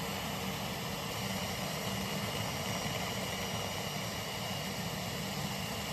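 Steady mechanical hum with hiss, unchanging throughout, with no clicks or handling sounds.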